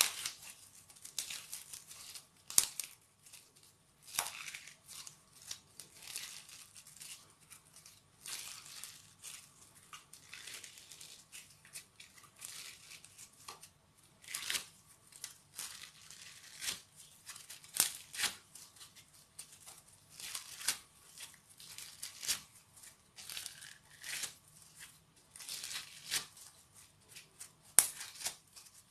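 Crunchy slime worked by hand, squeezed and stretched, giving off irregular crackling and sharp popping clicks with short quiet gaps between them.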